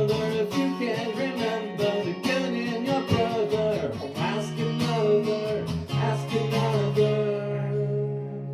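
Song outro led by strummed acoustic guitar, ending about seven seconds in on a held chord that rings out and fades.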